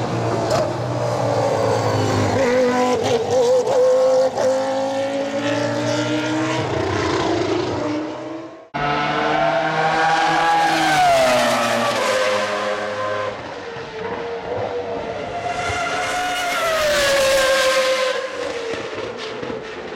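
Formula One car engine running at high revs, its pitch climbing and dropping through gear changes. After a cut, cars pass at speed on the straight, each giving a rise-and-fall in pitch, around eleven and seventeen seconds in.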